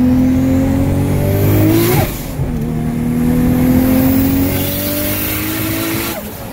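Tuned, high-boost Nissan Skyline R34 25GT Turbo's turbocharged 2.5-litre straight-six pulling hard under full throttle, heard from inside the cabin: the revs climb with a rising turbo whistle, drop at a gear change about 2 s in with a short turbo flutter hiss, then climb again and drop once more near the end.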